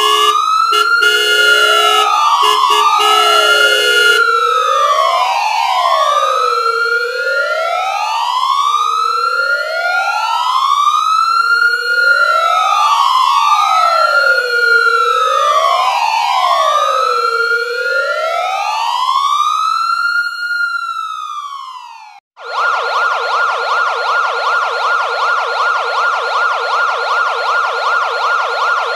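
Electronic police siren on the wail setting, two slow rising-and-falling tones overlapping out of step, each taking a few seconds per cycle. A steady pulsing tone sounds over the first few seconds. About three quarters of the way through the siren cuts off and restarts as a rapid warble.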